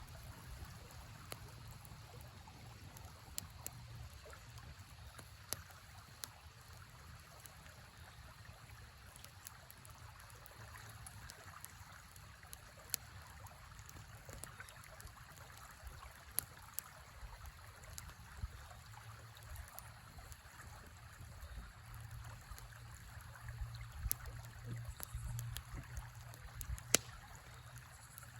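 A river flowing steadily, with a small campfire crackling over it in sharp, scattered pops, one of the loudest near the end.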